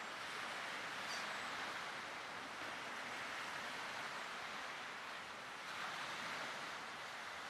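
Small waves washing on the shore: a steady hiss that swells and eases every few seconds.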